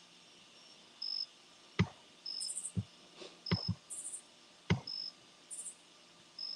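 Faint scattered clicks and taps of someone working a device, with a short high-pitched chirp that repeats about every one and a half seconds.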